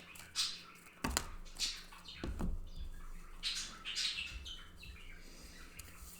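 Birds chirping in short high calls, with a few sharp clicks and soft thumps about one and two and a half seconds in.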